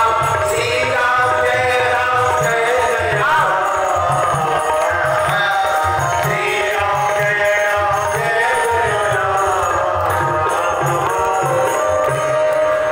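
Amplified devotional singing (a bhajan) over a loudspeaker system, a melodic sung line carried over a steady rhythmic drum beat.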